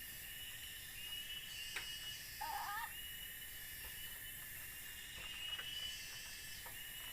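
Forest insects trilling steadily at a high pitch, with a brief wavering animal call about two and a half seconds in and a few faint clicks.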